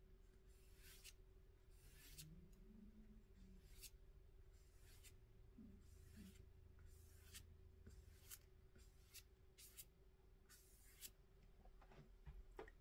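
Faint swishes of a 1-inch flat synthetic brush stroking acrylic paint across paper, about one stroke a second.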